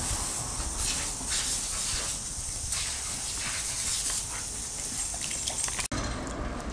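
Garden hose spraying a stream of water that hisses and splatters onto wet concrete, surging unevenly as a dog leaps into the spray and snaps at it. The hiss cuts off abruptly near the end.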